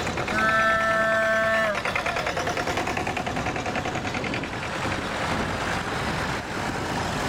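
Vintage tractor engines running as a column of old tractors drives past, with a close one's fast, even firing beat a couple of seconds in. Near the start a horn sounds once, held for about a second and a half.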